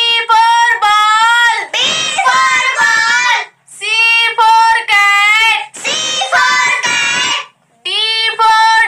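A high-pitched child's voice singing an alphabet rhyme in short sung lines with brief pauses between them, without instrumental backing.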